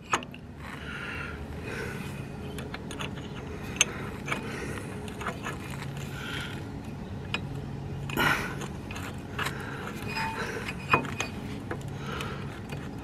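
Light metallic clicks and clinks of a nut and bolt being handled and fitted by hand at the rear shock's lower mount, a sharper clink now and then.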